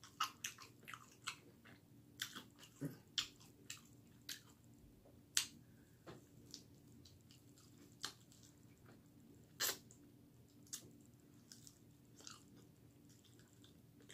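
Chewing and biting on a chicken wing: irregular sharp mouth smacks and crunches with short gaps between them, the loudest about five and ten seconds in.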